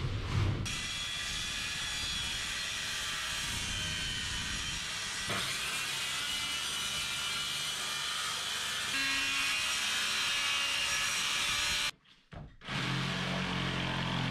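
Circular saw running as it cuts through a sheet of OSB board. After a brief drop-out near the end, a jigsaw takes over, lower in pitch.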